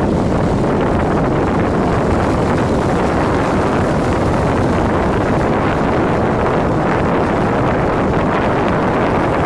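Steady, loud wind noise on the microphone over rough sea, mixed with the outboard engines of an RNLI inshore lifeboat under way.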